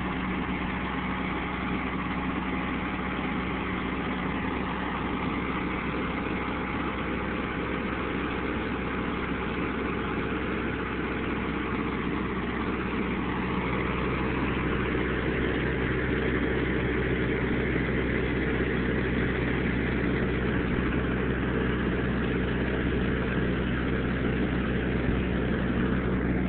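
Vehicle engine running at a steady drone, a little louder from about halfway through.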